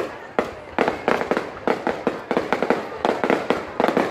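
Fireworks bursting in quick, irregular succession: many sharp bangs, often several a second, each with a short echoing tail.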